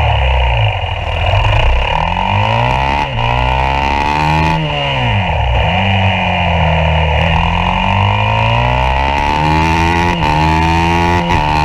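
Yamaha YZ450F single-cylinder four-stroke engine heard onboard at racing speed: it revs up with a short break for an upshift, drops in pitch sharply about four and a half seconds in as the bike brakes for a corner, then climbs steadily again out of the turn with two quick upshifts near the end.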